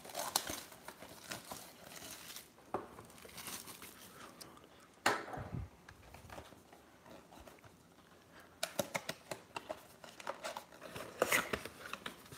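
A cardboard box of 2018 Diamond Kings baseball cards being handled and opened by hand: crinkling, tearing and scraping of the card-stock flaps and the cardboard insert, with taps of the box. The noise comes in spurts, with a louder one about five seconds in, and is busiest near the end as the insert and packs are pulled out.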